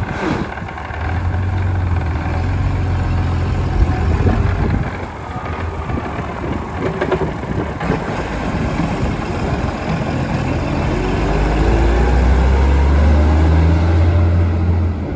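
1983 Massey Ferguson 2620 tractor's Perkins six-cylinder diesel engine running. It gets louder over the last few seconds as the tractor drives off.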